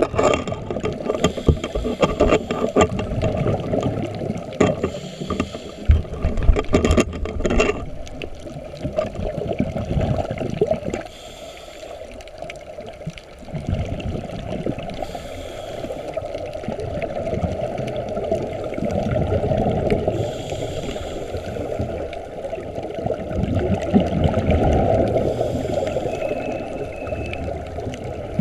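Underwater rumble of scuba divers' exhaled regulator bubbles, swelling and easing every few seconds. A scatter of knocks and clicks in the first eight seconds.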